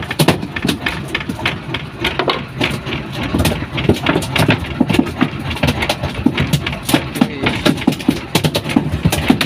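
A freshly landed queenfish thrashing in a wooden boat's fish hold, its body and tail slapping the planks in rapid, irregular knocks, several a second.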